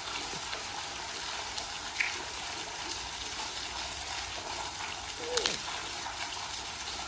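Steady splashing hiss of a thin stream of water pouring down into the water of a well. A sharp click comes about two seconds in, and a short falling tone a little after five seconds.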